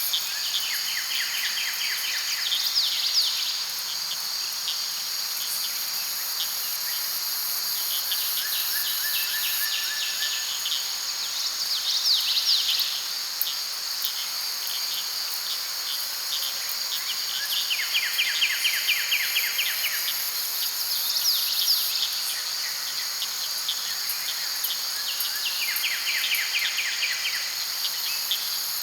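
Late-summer daytime forest ambience: a continuous high-pitched chorus of crickets and other insects. About every eight or nine seconds a pulsed trill lasting a second or two rises over the chorus.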